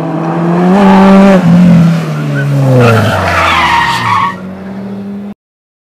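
Renault Megane rally car's engine revving hard, its pitch falling away from about a second and a half in, with tyres squealing for about a second around three to four seconds in. The sound cuts off suddenly about five seconds in.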